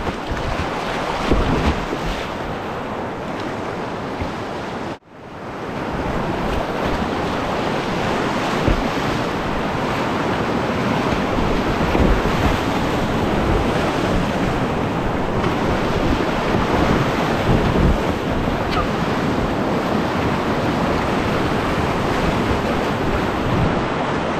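Whitewater rushing and churning through a creek rapid, heard from a kayak running it, with splashing and irregular low thumps on the microphone. The sound cuts out sharply for an instant about five seconds in, then comes back.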